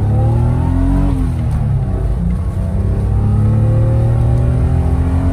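BMW 528i E28's 2.8-litre straight-six under hard acceleration. The revs rise, drop at a gear change about a second in, then climb steadily through the next gear.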